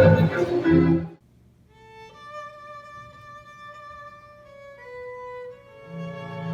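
Violin and cello playing: a loud bowed passage stops short about a second in, then the violin holds long, slow notes over a faint low held note, and the cello comes in strongly near the end.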